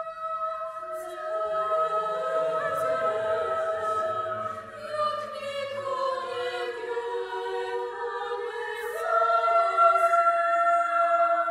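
Mixed chamber choir singing a cappella. High voices hold long steady notes while lower voices come in one after another and slide in pitch beneath them. About nine seconds in, a new, louder chord enters.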